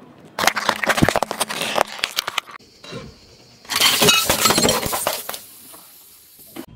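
A car tyre rolls over plastic Easter eggs, cracking them in a quick run of snaps about half a second in. Then, about four seconds in, a tyre crushes disposable plastic lighters and a white plate on gravel: a burst of breaking, cracking and clinking shards.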